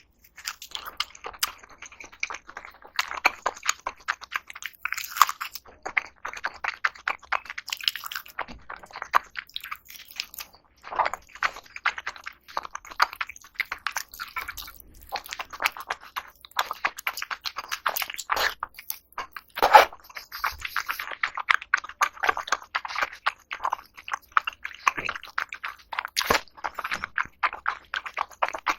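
A person eating close to the microphone, chewing and biting food in a steady run of quick, irregular crunching clicks, with a few louder bites along the way.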